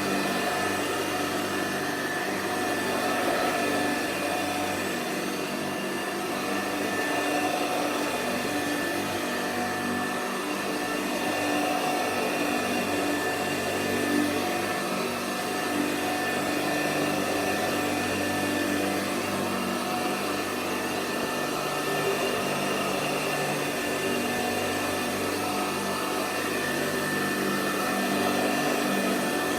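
Hoover Convertible Model 35 upright vacuum cleaner running steadily, its motor giving an even whine and hum.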